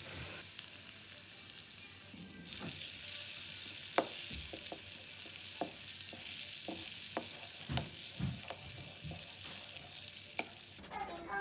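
Hot oil sizzling as it hits a bowl of flour, mixing an oil-and-flour paste for scallion pancakes. A metal spoon stirs the paste, clinking sharply against the ceramic bowl a dozen or so times. The sizzling stops near the end.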